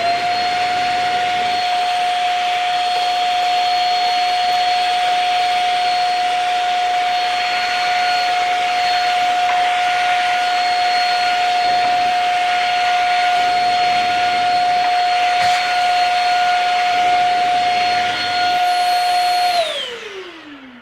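Shark Rocket corded stick vacuum fitted with its extended crevice tool, switched on at the start and running steadily with a high whine and rushing airflow as it picks up debris. Near the end it is switched off and the motor winds down, its pitch falling.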